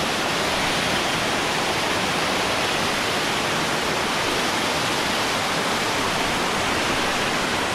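Steady rushing of water from a stream cascading through a narrow rock gorge.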